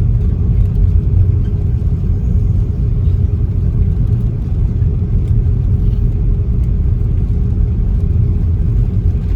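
Steady low rumble in the cabin of an Airbus A330-300 taxiing, its Rolls-Royce Trent 700 engines at idle, with a steady hum running through it.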